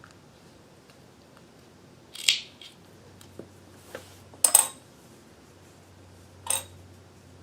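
Sewing scissors snipping through fabric and cord, three short crisp cuts a couple of seconds apart, with a few fainter clicks of handling between them.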